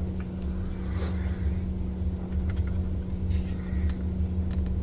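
A steady low hum runs throughout, with faint light clicks and rustles of trading cards and plastic card sleeves being handled.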